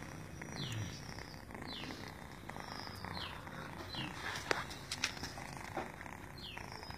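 Kitten purring while it suckles at a dog's teat, with a few small sucking clicks about halfway through. Short high falling chirps recur every second or so over it.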